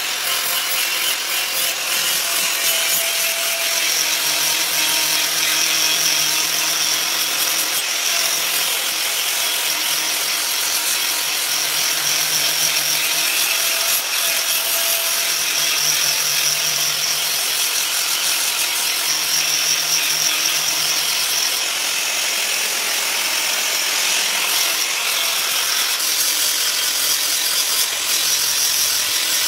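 Handheld angle grinder running steadily with its disc ground against the steel blade of a curved khara cleaver to sharpen its edge: a continuous grinding hiss without a break.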